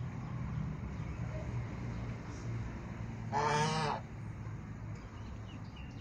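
A domestic goose gives a single honk a little over three seconds in, lasting under a second, over a steady low background hum.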